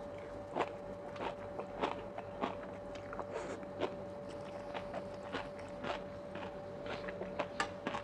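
Close-miked chewing of a mouthful of sea grapes and spicy oyster salad: a run of irregular wet clicks and crunches.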